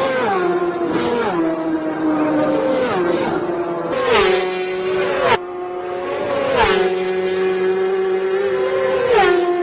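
Racing motorcycles passing one after another at high speed, each engine note dropping sharply in pitch as the bike goes by.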